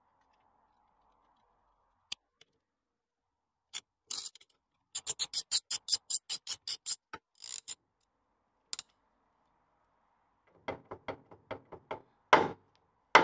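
Ratchet and socket working the top swivel pin bolts of a Land Rover Series 2 front swivel housing: a fast run of ratchet clicks, about six a second for around two seconds in the middle, with scattered metal clicks either side. Two louder metal clunks come near the end.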